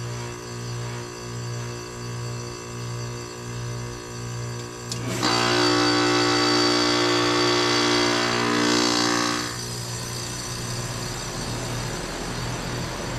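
Carrier Base Series 1.5-ton heat pump (25HBR) outdoor unit humming in defrost. About five seconds in, a sharp click is followed by a loud rush of refrigerant lasting about four seconds, the sound of the reversing valve shifting, typical of the end of a defrost cycle. The rush then drops to a steadier running noise.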